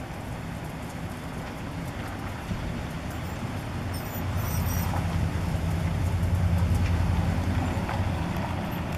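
Low, steady motor-vehicle engine rumble that swells louder about halfway through and eases off near the end.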